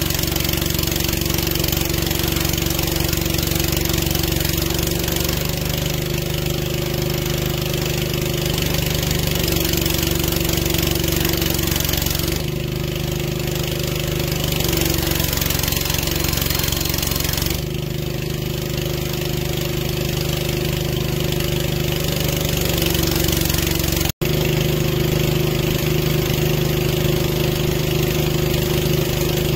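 Engine of a towable boom lift running steadily, its note shifting several times as the hydraulics raise and swing the boom.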